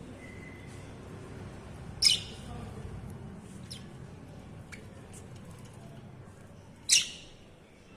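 Pet budgerigars chirping: two loud, sharp chirps about two seconds in and again near the end, with a few fainter chirps between them over a low background hum.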